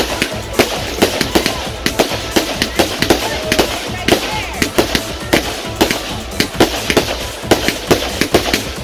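Consumer aerial fireworks going off overhead in a rapid, irregular string of sharp bangs and crackles, several a second.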